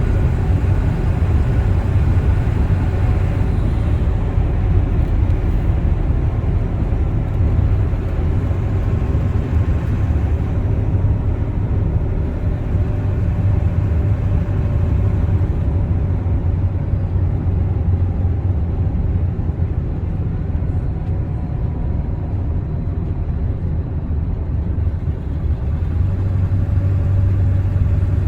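Pickup truck driving at a steady pace, heard from inside the cab: a continuous low engine and road rumble.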